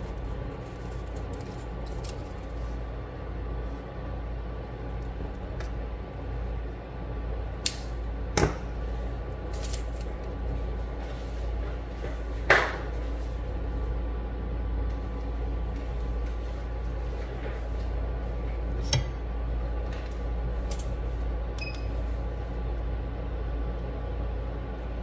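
Steady electrical hum under a few sharp clicks and taps from small tools and parts being handled during hand soldering. The loudest is a brief ringing tap about halfway through.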